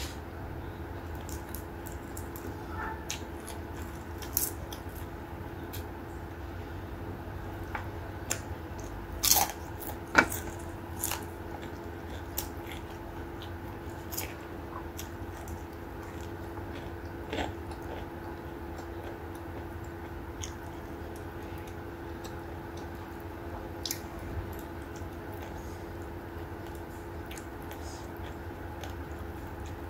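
Close-miked eating sounds of a person eating rice and fish with their fingers: mouth and chewing noises with scattered sharp clicks and smacks, a louder cluster about nine to ten seconds in, over a steady low hum.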